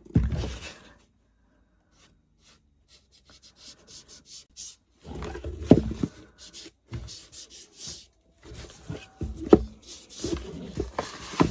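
Hands handling and rubbing a small wooden craft piece and its supplies: a knock at the start, a quiet pause, then irregular scraping and rubbing with a few sharp knocks and taps.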